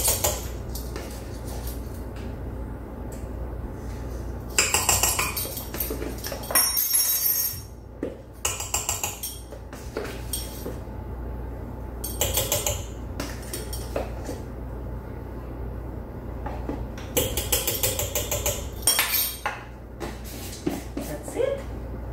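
A metal tablespoon clinking and tapping against a stainless-steel stand-mixer bowl in several short bursts as spoonfuls of cornstarch are scooped and knocked into the bowl, over a steady low hum.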